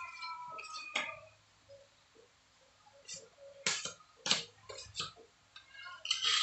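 Metal putty knife scraping and clinking in short, irregular strokes against a hand-held tray of wall putty and across the wall as putty is loaded and spread.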